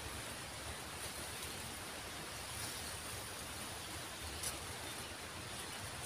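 Steady faint outdoor background hiss with no engine or horn, and one brief click about four and a half seconds in.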